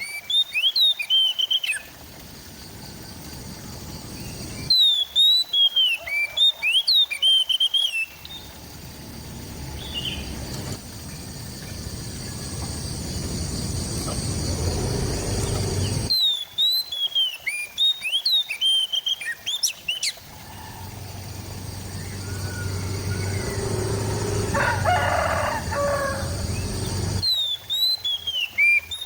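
Oriental magpie-robin (kacer) singing in repeated bursts of quick, sharp whistled chirps, each burst lasting two to four seconds. Between the bursts a rushing background noise slowly grows louder.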